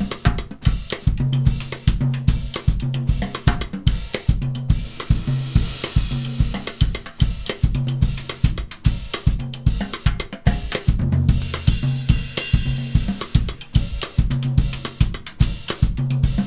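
Drum kit playing a 6/8 Afro-Cuban groove with a cross-stick on the snare rim, the stick's tip facing away, giving a woody, natural click that blends into the groove. Bass drum and cymbals are played under it.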